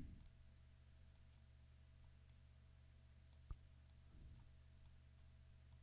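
Near silence with a faint steady low hum, broken by a single computer mouse click about three and a half seconds in.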